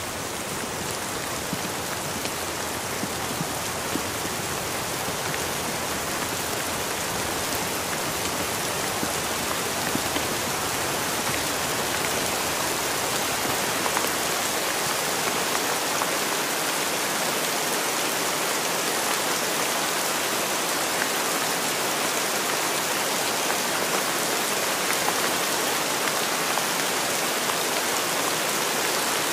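Steady rain, a dense, even hiss of many drops, growing slightly louder over the first ten seconds and then holding steady.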